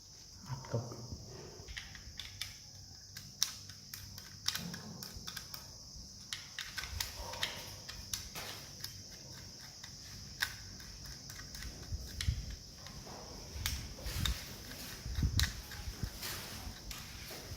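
Irregular small clicks, taps and a few dull knocks, like small parts and tools being handled, over a steady high-pitched whine.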